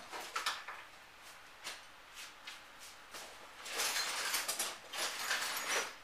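Rustling and handling noises of someone rummaging through things: a few light clicks in the first second or so, then two longer spells of rustling about four and five seconds in.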